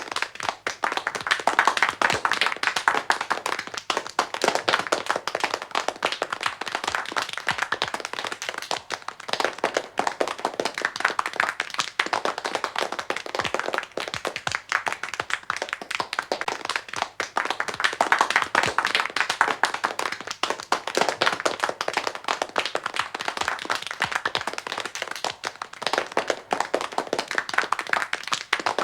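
A small audience clapping: many hands overlapping in continuous applause that swells and eases every few seconds without stopping.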